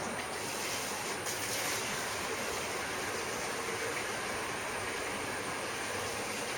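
Steady background noise: an even hiss over a low rumble, with a thin, continuous high tone running through it.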